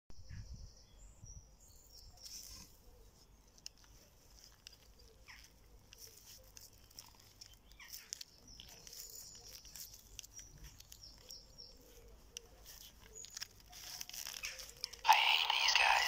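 Rustling and crackling of leaves and twigs in a bush, faint and scattered, then a loud rustle lasting about a second near the end.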